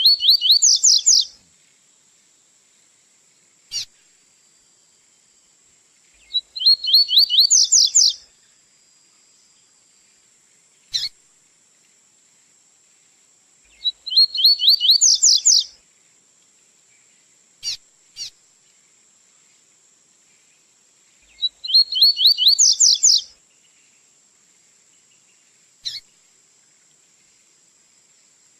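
Double-collared seedeater (coleiro) singing the 'tui-tui' song: short, fast, high trilled phrases of about two seconds, repeated about every seven seconds, with single sharp chip notes in the gaps between them.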